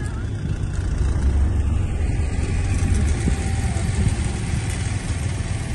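Steady low rumble of road and engine noise from a vehicle driving along a highway, heard from inside the moving vehicle.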